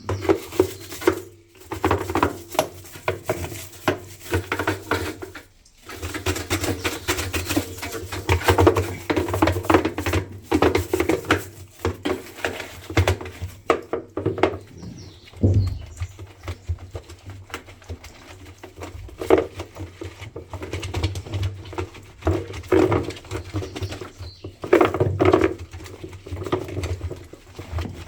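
Irregular scrubbing, rubbing and knocking from cleaning the tub of a top-loading washing machine by hand, with short pauses between strokes.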